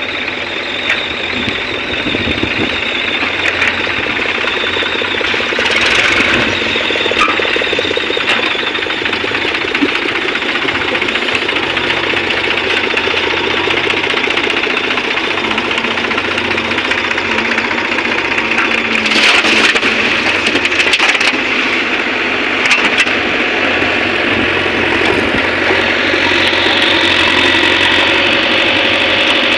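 Heavy diesel machinery engine running steadily. Short noisy bursts come about six seconds in and again around 19 to 21 seconds.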